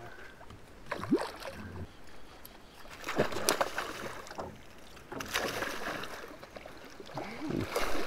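A hooked fish thrashing at the water's surface beside a boat, in several separate splashes.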